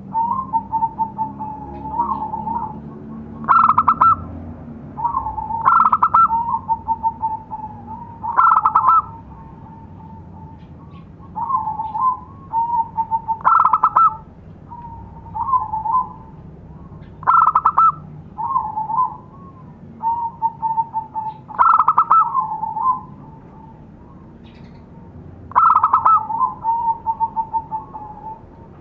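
Zebra dove (perkutut) cooing its song, the call used as a lure for wild perkutut: phrases of quick soft notes, each opening with a louder burst and trailing off in a run of lower notes. A loud phrase comes every three to four seconds, with softer phrases in between.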